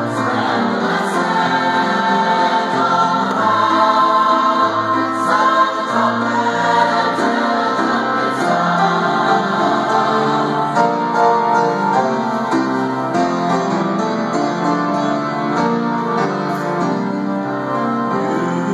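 Mixed choir of women's and men's voices singing a sacred choral piece in sustained chords that change every second or so, with instrumental accompaniment underneath.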